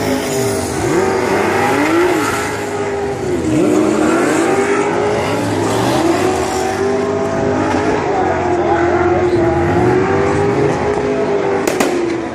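Drift car engine held at high revs, its pitch wavering and dipping briefly as the throttle is worked, with the haze of spinning, smoking rear tyres. A couple of sharp cracks near the end.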